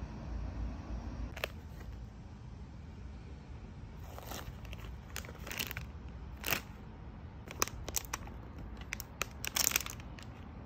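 Thin plastic snack packaging crinkling and crackling in a run of short, sharp bursts as it is handled, thickest in the second half. A low rumble comes before it, in the first second or so.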